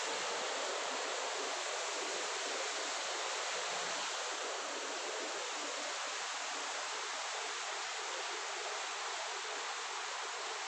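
Steady rush of water from an artificial waterfall spilling into a pond: an even, unbroken hiss that grows slightly fainter about halfway through.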